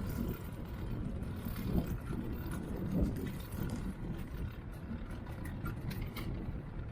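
Steady low rumble of a scooter ride: wheels rolling over pavement and wind on the microphone, with a few faint knocks.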